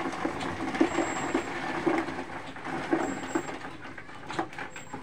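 Building-site work noise: irregular knocks and clatter over a steady background noise.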